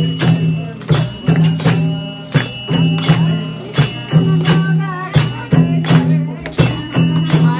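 Bhajan, a Hindu devotional song, played live: singing over a steady beat of struck percussion at about three strikes a second, with a sustained low drone underneath.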